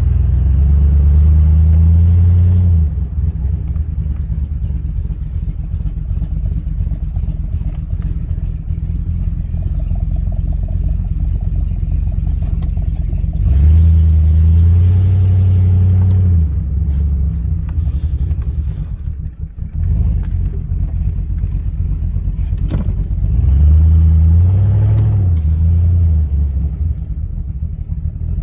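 Chevrolet pickup's V8, fitted with a Brian Tooley Racing Truck Norris camshaft and running on the stock GM torque converter, heard from the cab while driving slowly. It runs steadily between three brief pulls where it gets louder and higher: one at the start, one around halfway and one near the end.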